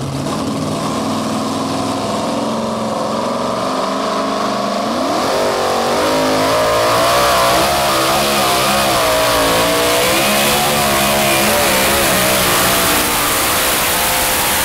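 Supercharged engine of a modified two-wheel-drive pulling truck idling on the hitch, then revving up sharply about five seconds in and running at high revs under full load as it pulls the sled. The engine's pitch wavers up and down through the pull.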